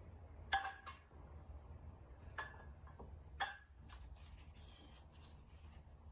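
Metal weight plates on a barbell clinking and clanking as the bar is lowered toward the ground: a handful of sharp, briefly ringing knocks, the loudest about half a second in, then a light metallic rattle.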